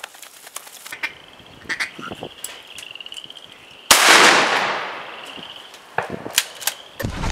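A single shotgun shot about four seconds in: a sharp, loud blast with a ringing tail that fades over about a second.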